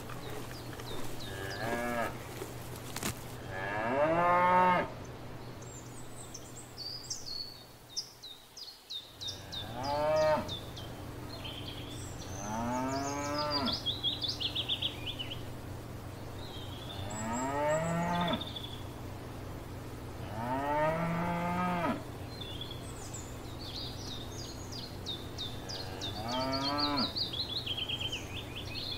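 Cows mooing, about seven separate moos spread out with pauses between them, each one rising and then falling in pitch. The loudest comes about four seconds in.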